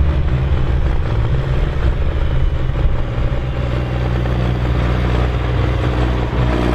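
Six-cylinder diesel engine of a Ford TW-series pulling tractor running loud and steady, holding an even pitch.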